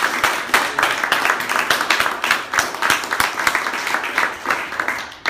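A small audience applauding, with one person clapping close by; the clapping thins out near the end.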